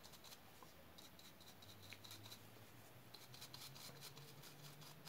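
Faint, quick scratching of a stiff drybrush's bristles stroking back and forth over the raised detail of a resin diorama base, a rapid run of short scrapes with brief pauses.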